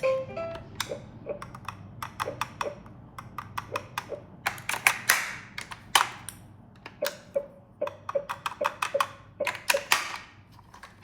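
An irregular run of sharp clicks and taps, some with a short ringing tone, with a brief swishing rustle about halfway through and another near the end.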